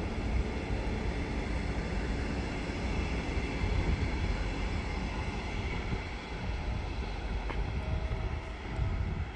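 Double-deck electric regional train pulling away and moving off into the distance: a steady rumble of wheels on the track, with a faint electric hum above it.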